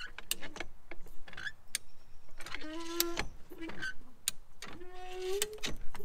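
High-lift farm jack pumped inside a crushed 2007 Dodge Ram 2500 cab: its ratchet clicks with the handle strokes. Twice the bent cab metal gives a long, slightly rising creak as the roof is forced back out.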